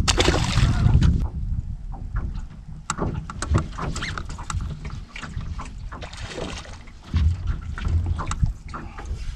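A released bass splashing into the lake about a second long. Wind rumbling on the microphone follows, with scattered small clicks and knocks.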